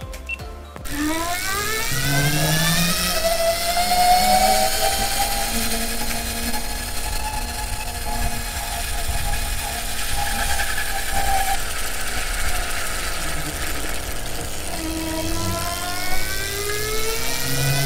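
Aeon Ai-1 Sport electric scooter's motor and chain drive whining as it pulls away, the whine rising in pitch as it speeds up and then holding steady over road and tyre noise. It eases off and rises again near the end as the scooter accelerates once more.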